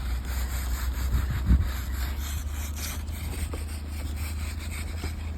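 Snow being scraped off a car: a steady, rough rubbing over a low, steady rumble.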